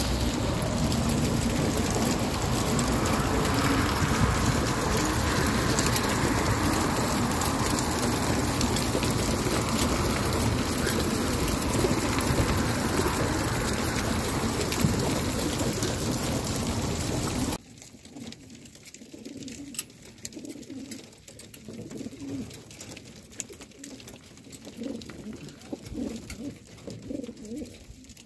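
Many racing pigeons cooing in the crates of a pigeon transport vehicle, under a loud steady rushing noise that cuts off suddenly about two-thirds of the way through, after which the cooing is heard more clearly.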